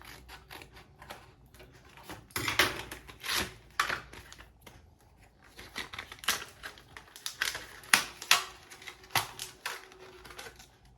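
Kingston NV2 SSD packaging being opened by hand: a run of irregular clicks, taps and short rustles, with a few louder snaps partway through.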